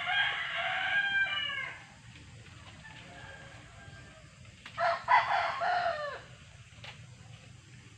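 Rooster crowing twice: one long crow right at the start and a second, louder crow about five seconds in, each about a second and a half long.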